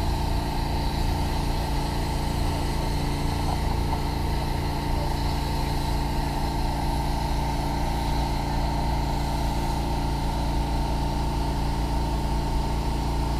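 Steady mechanical hum of running machinery, unchanging throughout, with a constant mid-pitched tone over a low drone.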